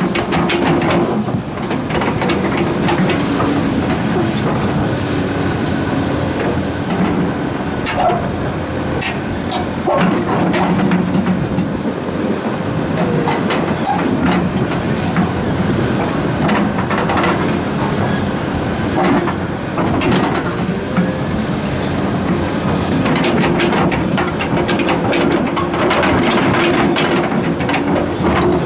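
Large Komatsu excavator's diesel engine running steadily, while boulders knock and scrape against the steel bucket and against each other as they are set in place, with sharp irregular clacks throughout.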